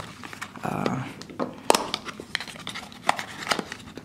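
Hands opening a small cardboard box and drawing out a clear plastic case, with rustling handling noise and a few sharp clicks and taps, the loudest near the middle.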